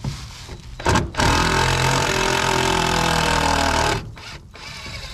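Cordless drill backing out a screw from the underside of a wooden brooder: a brief blip of the motor about a second in, then it runs steadily for about three seconds, its pitch sagging a little under load, and stops.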